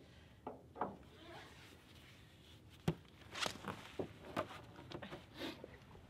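Faint handling noises as a yellow nylon ratchet strap is thrown over a loaded utility trailer and laid in place: rustles and light knocks, with one sharp click about three seconds in.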